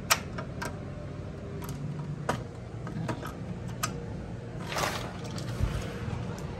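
Sliding screen door's latch and metal frame being worked: a string of sharp clicks and knocks, the loudest right at the start. About five seconds in there is a short scraping slide as the door opens.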